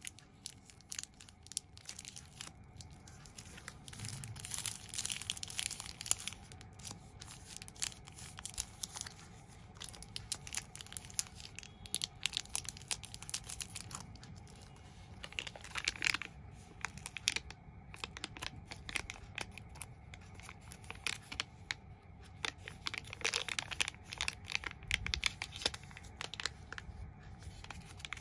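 Chocolate bar wrappers crinkling and crackling as they are handled and opened, a dense run of small crackles broken by a few short pauses.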